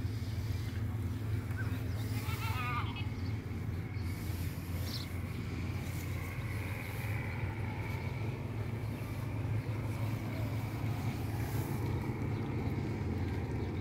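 A goat bleats once, a short wavering call about two and a half seconds in, over a steady low rumble.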